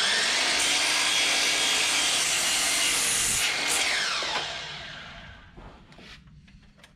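DeWalt sliding compound miter saw running at full speed and cutting lumber. The trigger is released about four seconds in, and the blade spins down with a falling whine.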